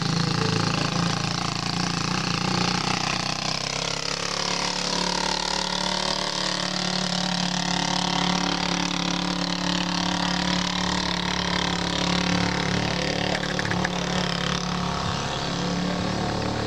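Small motorcycle engine running steadily on a dirt track, its pitch dipping and rising again about five seconds in.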